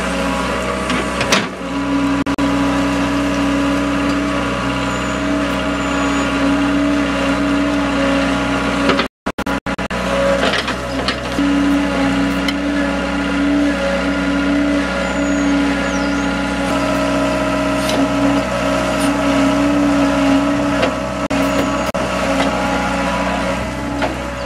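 Hydraulic excavator's diesel engine running steadily under load as it digs, with a few knocks. The sound drops out for a moment about nine seconds in.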